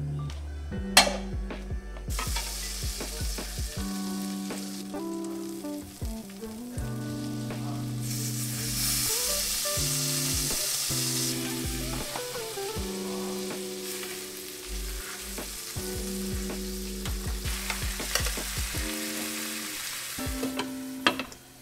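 Food sizzling as it fries in a hot pan, a steady hiss with a few small ticks, over background music.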